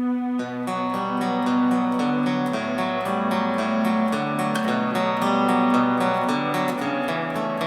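Recorded music playing back: a held note, then from about half a second in, a quick run of plucked guitar notes.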